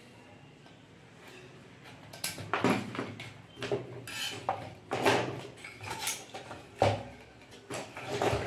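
Irregular knocks and clatters of hard objects as the welding machine's circuit board, with its metal heat sink attached, is handled and shifted on the workbench, starting about two seconds in after a quiet start.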